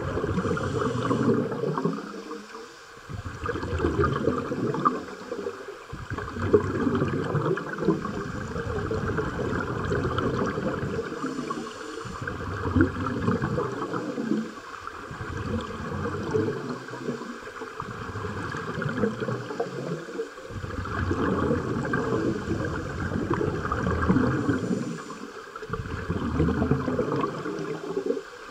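Scuba regulator exhaust bubbles gurgling and rumbling underwater, in runs broken every few seconds by short quiet gaps between breaths.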